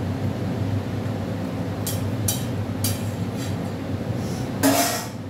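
A metal spoon stirring fish curry in a steel pan, giving a few light scrapes and then a louder metallic clink against the pan near the end, over a steady low kitchen hum.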